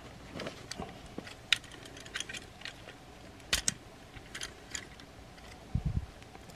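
Plastic parts of a Transformers Optimus Prime action figure clicking and snapping as pegs are pulled free and pieces are moved: scattered sharp clicks, the sharpest a little past halfway, and a soft low bump near the end.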